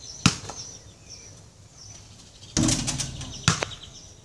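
A basketball on a concrete driveway: a sharp bounce just after the start, a longer rattling clatter from the portable hoop about two and a half seconds in, then two quick bounces on the concrete about a second later. Small birds chirp in the background.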